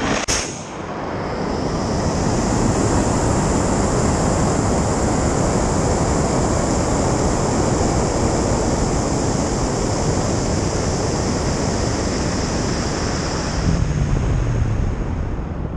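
Onboard camera audio of a high-power rocket launch: a sharp burst as the motor ignites and the rocket leaves the rail, then a steady, loud rushing roar of motor and air streaming past the camera as it climbs, the sound changing shortly before the end.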